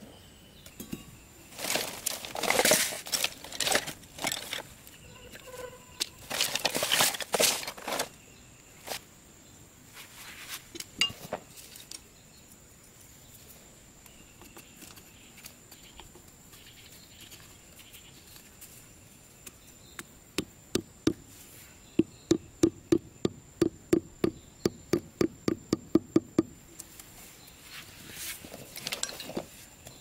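Hand tools scraping and rustling in dry sandy soil beside a hole. Later comes a quick even run of sharp knocks, about three a second for some six seconds, as a wooden stake is tapped into the ground. A thin steady high insect whine runs underneath.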